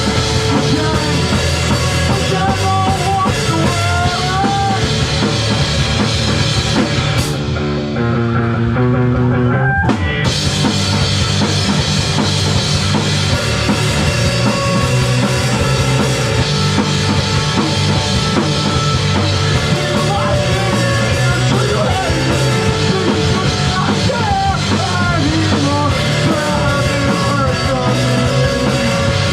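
Live rock band playing a song with drum kit, guitar and sung vocals. About seven seconds in the drums and cymbals drop out for a few seconds, leaving a line of notes climbing in steps, and the full band crashes back in around ten seconds.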